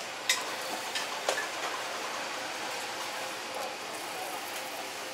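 Steady background hiss of a food stall with a faint hum, and a few light clicks and knocks in the first second and a half.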